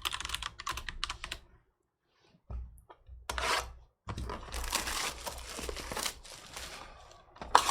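Plastic wrapping on a sports-card box being torn and crinkled, after a few light clicks and a short pause.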